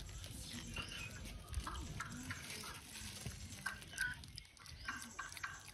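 A foil snack packet crinkling in irregular clicks and rustles as a baby macaque handles it.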